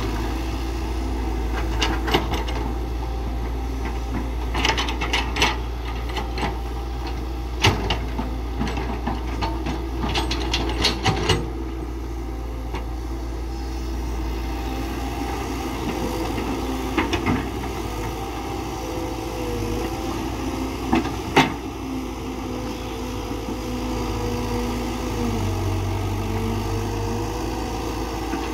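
Caterpillar 312BL hydraulic excavator's diesel engine running steadily under working load. Scattered sharp knocks and clatters, bunched mostly in the first twelve seconds, with a few more later, as the machine digs rock and soil. A faint wavering whine comes in during the second half.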